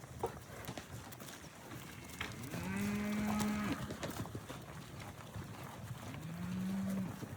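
Hereford cows mooing: two long, steady moos, the first about two and a half seconds in and the second near the end, over scattered clatter of hooves as the herd runs.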